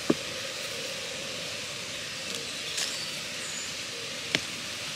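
Steady background hiss with a few light clicks from a hand weeding tool pulling small weeds from soil; the sharpest click comes near the end.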